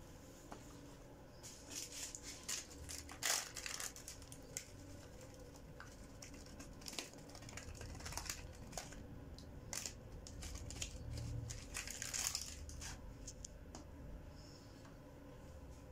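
Thin plastic bag crinkling in irregular crackly spells as it is handled and shaken out over a pot of rice. There is a shorter spell in the first few seconds and a longer one in the second half.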